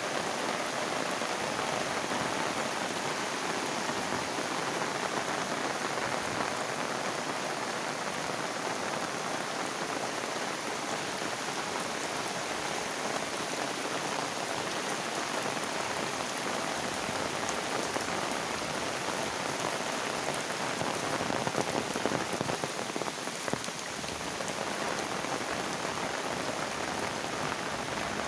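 Heavy rain falling steadily, a dense even patter of drops on hard surfaces.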